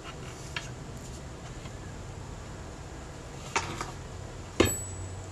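Elna Junior toy sewing machine being handled and set down on a wooden table: a few light clicks, then two knocks, the second and loudest about four and a half seconds in.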